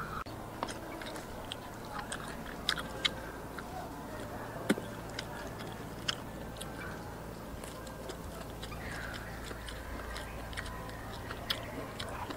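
Close-up eating sounds of someone gnawing and chewing meat off a braised donkey bone: scattered wet smacks and clicks of biting and chewing, the sharpest a little under five seconds in.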